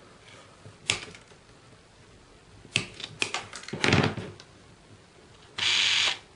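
Sharp clicks and taps of small tools and parts on a cutting mat during soldering work on a slot-car brake-light LED board: one click about a second in and a cluster of taps around three to four seconds in. Near the end a loud steady hiss lasts about half a second.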